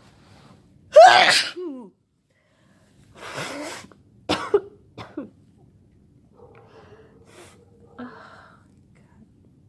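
A person sneezing hard about a second in, the sneeze ending in a falling voiced tail, then a breathy rush and a few short sharp bursts a couple of seconds later: a sneezing fit from illness.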